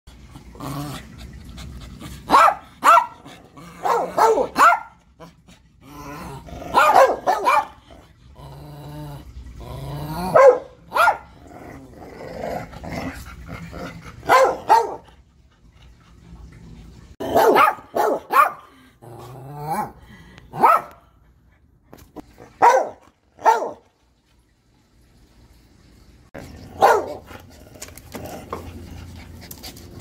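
A small white long-haired Maltese-type dog and a brown pit bull–type dog barking in repeated bursts of several barks each, with a pause of a few seconds about three-quarters of the way through.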